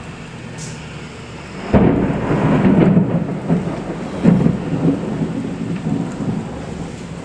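Thunder: a sudden crack about two seconds in, then a rolling rumble with a second loud peak a couple of seconds later, slowly fading away.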